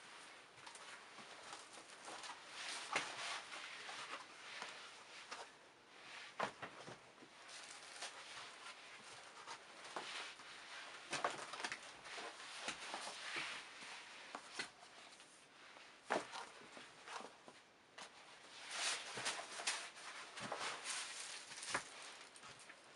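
Shoes being handled and set down on a pile of footwear: irregular rustling with scattered soft knocks and clicks.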